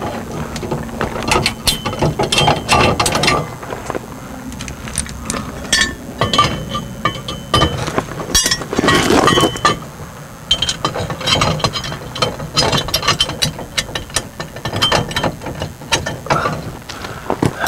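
Steel landing gear leg and foot of a fifth-wheel camper clinking and rattling as the new foot is fitted onto the leg: a long run of irregular metal clanks and ticks.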